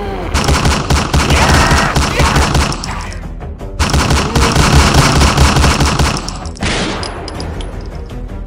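Automatic gunfire sound effect in two long bursts of rapid shots, each about three seconds long. The first starts just after the opening and the second about four seconds in, over background music.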